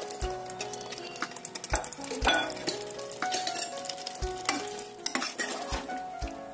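Raw chicken pieces dropping into hot oil and green onion, coriander and chilli masala paste in a pot, sizzling with sharp crackles and dull thumps as they land, then stirred with a spatula.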